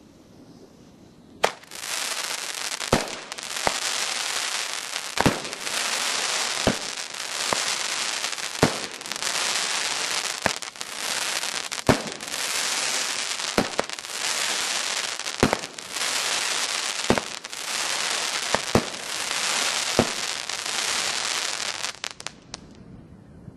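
A Blackboxx Berserker 10-shot, 25 mm crackling-palm fireworks battery firing. Sharp reports come about every one and a half seconds, each followed by dense crackling from the crackling-palm shells. It starts about a second and a half in and dies away near the end.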